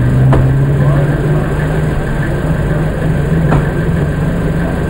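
A vehicle engine idling steadily, with a sharp click about a third of a second in and another about three and a half seconds in.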